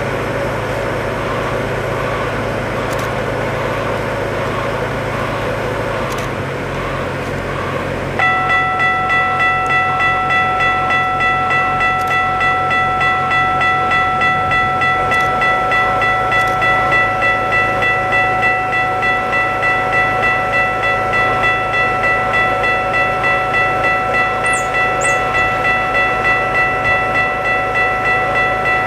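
Railway level-crossing warning bell ringing in a steady, rapid pulse, warning of an approaching train; it becomes much louder about eight seconds in. A steady low hum runs underneath.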